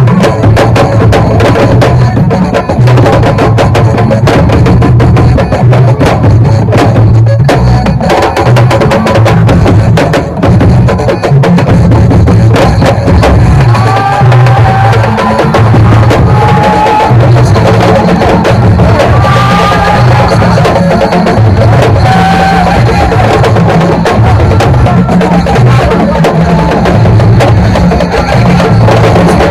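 Loud percussion-driven music: drums over a pulsing bass pattern, with a few short sliding melodic notes in the middle of the stretch.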